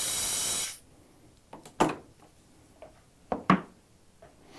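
Compressed-air blow gun hissing steadily as it blows debris out of a freshly crimped AC hose, cutting off abruptly under a second in. Then a few sharp knocks, one near two seconds in and a quick pair about a second later, as the hose and fittings are handled.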